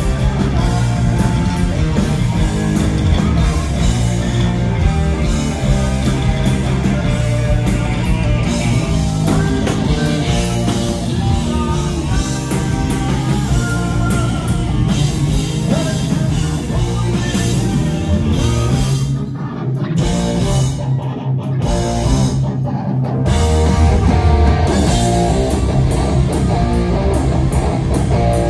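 Heavy metal band playing live: distorted electric guitars, electric bass and drum kit. About two-thirds of the way through, the band stops short two or three times between hits, then comes back in louder.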